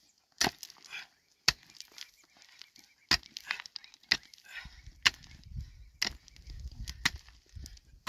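Pickaxe striking rocky soil in steady blows about one a second, each a sharp hit followed by stones and earth clattering.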